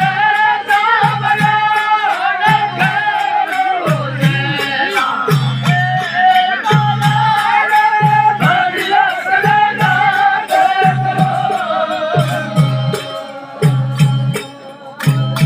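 Sindhi kafi folk song: a singer's voice holding long, wavering notes over a low drum stroke about every second and a quarter and steady clicking percussion. The music drops in loudness near the end, then picks up again.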